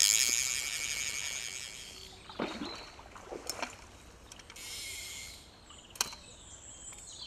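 Water splashing as a large hooked rainbow trout is brought into the landing net: a loud splash at the start that fades over about two seconds, then a few knocks and a shorter splash later on.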